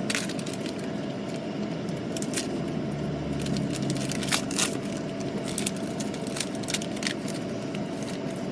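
Football trading-card pack being opened and handled: the wrapper crinkling in short, scattered crackles and clicks over a steady background hum.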